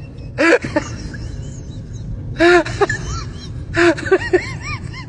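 Dog whining in short, high rising-and-falling cries, in three bursts a second or more apart.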